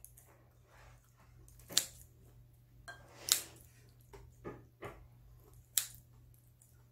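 Kitchen scissors snipping through braised pork neck meat in a bowl: about five sharp, separate snips spread over several seconds.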